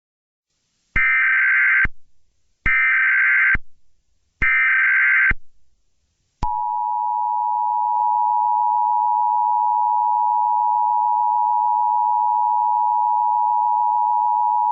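Emergency Alert System SAME header: three short bursts of warbling digital data tones, each just under a second, with brief gaps between them. Then comes the EAS attention signal, a steady two-tone alert tone held for about eight seconds and cut off abruptly. Together they mark the start of a new emergency alert broadcast.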